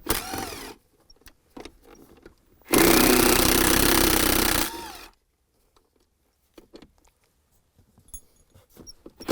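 Power driver spinning a 7mm socket to back out bolts: a short run that ends just under a second in, then a second run of about two seconds, each ending in a falling whine as the motor winds down. Faint clicks of handling follow.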